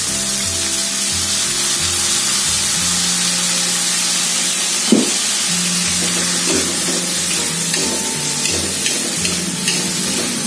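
Shrimp, fish balls and garlic sizzling in a hot wok as they are stir-fried with a metal spatula, with one sharper knock about halfway through.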